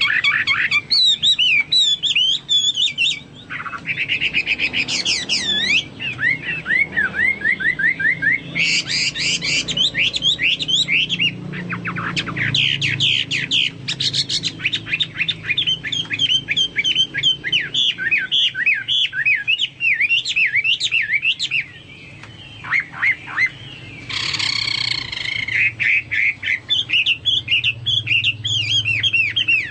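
Hwamei songbird in full, non-stop song: rapid runs of loud whistled notes and trills, a varied song that sounds like a cucak Papua or cucak mas, with a brief lull about three-quarters of the way through.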